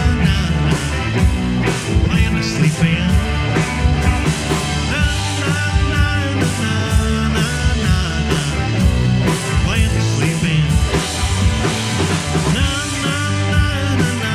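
Live rock band playing an instrumental passage of a song, with electric guitars, including a 12-string electric, over bass guitar and a steady drum beat.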